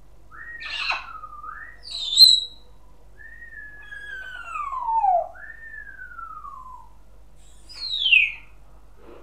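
African grey parrot whistling and squawking: a series of clear gliding whistles, including a long falling one and an arched one, broken by short harsh squawks. A sharp loud squawk comes about two seconds in, and a high quick falling squeal comes near the end.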